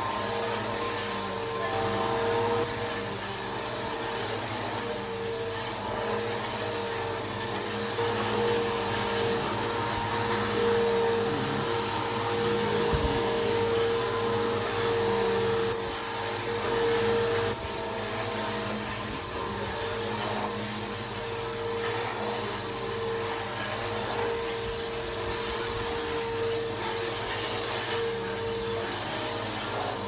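Bissell PowerForce Helix upright vacuum cleaner running steadily while it is pushed back and forth over a rug, its motor holding a steady whine under the rush of air.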